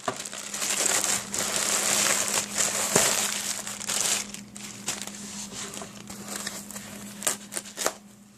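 Plastic mailer bag and foam packing wrap crinkling and rustling as a package is pulled out and handled. It is loudest for the first few seconds, then gives way to quieter rustles and small ticks.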